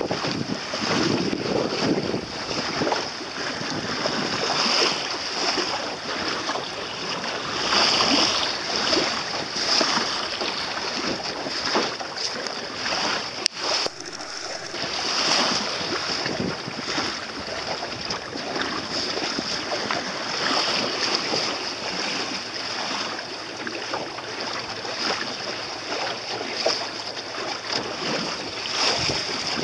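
Water rushing and splashing along the hull of a small sailboat under sail, with wind buffeting the microphone. A sharp click with a brief drop in sound about halfway through.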